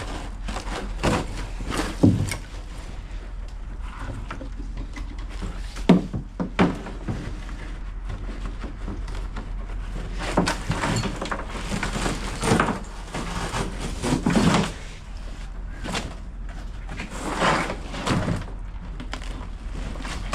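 Irregular knocks, scrapes and rustling from rotten wood, carpet and debris being handled and pulled out of an old boat hull.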